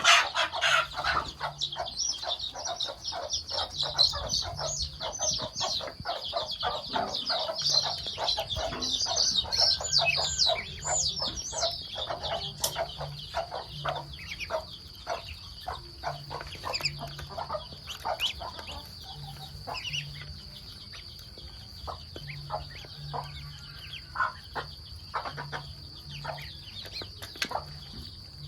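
Ducks feeding, their bills making rapid clicking and pecking sounds, with high peeping calls over the first dozen seconds. The clicks then thin out over a steady high-pitched whine.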